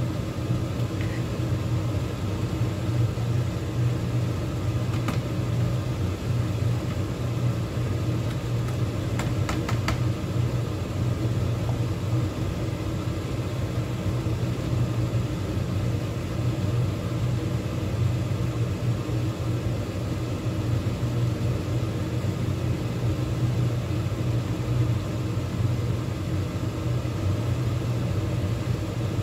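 A steady low mechanical rumble that does not change, with a few light clicks about five seconds in and again around ten seconds in.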